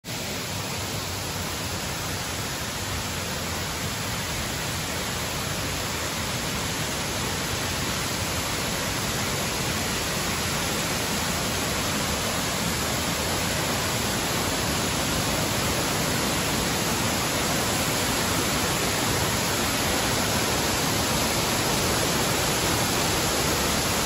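Waterfall's steady rush of falling water, growing gradually louder.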